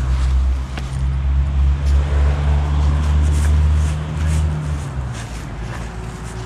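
A car driving past on the road close by, its engine hum steady for about five seconds, rising slightly near the end, then fading away.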